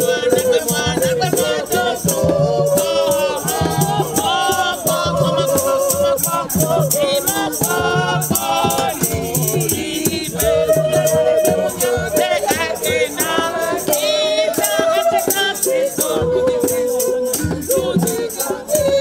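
People singing, accompanied by a beaded gourd rattle (Ewe axatse) shaken in a steady rhythm.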